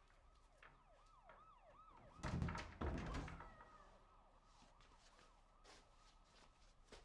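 A faint siren yelping up and down about three times a second, with two heavy thuds half a second apart a couple of seconds in, louder than the siren.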